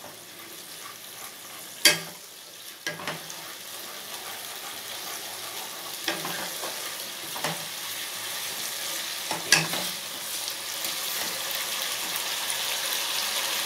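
Onion-tomato and ginger-garlic paste sizzling in mustard oil in a frying pan, stirred with a wooden spatula that knocks sharply against the pan several times, loudest about two seconds in. The sizzle grows gradually louder.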